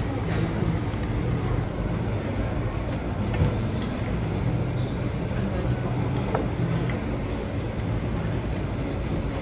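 Steady rushing noise with a low hum at a teppanyaki griddle station, typical of the extractor hood running over the hot plate. A few faint metallic ticks, about a third and two thirds of the way through.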